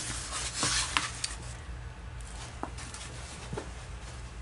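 Rustling and a few light clicks and taps as a diamond painting canvas is handled, over a faint steady room hum.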